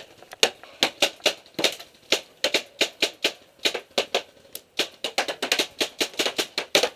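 Rapid, irregular paintball fire: sharp pops and cracks, several a second, from paintball markers shooting and balls smacking against wooden bunker boards.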